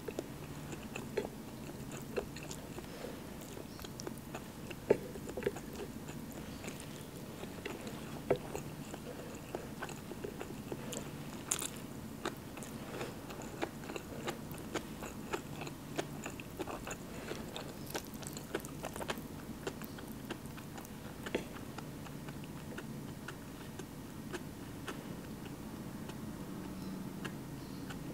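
A person eating rice and chicken by hand, chewing with many small clicks and scrapes of fingers and food against a plate.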